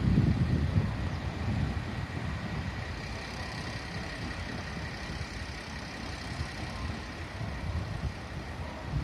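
Diesel railcar engine running with a low rumble that swells and eases, loudest about the first second, with a faint steady high tone above it.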